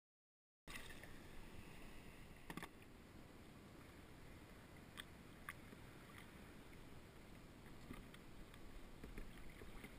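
Near silence: dead silence for the first moment, then a faint steady hiss with a few soft clicks, about two and a half seconds in and around five seconds in.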